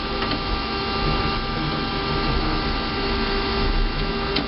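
Desktop computer running, its cooling fans giving a steady whirring hum with several constant tones. A single sharp click comes near the end.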